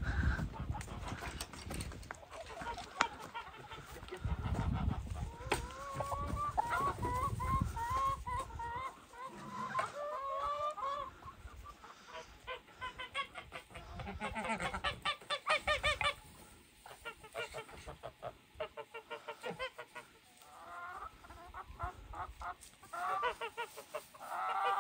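Domestic geese honking in runs of repeated calls, mixed with chickens clucking. A long run of honks comes in the first half, with quicker bursts of calls later.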